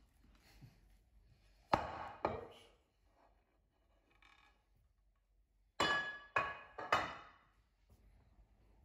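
A clear plastic tub knocking against the worktop as sourdough dough is tipped out of it. There are two knocks about two seconds in, then three more that ring briefly, around six to seven seconds in.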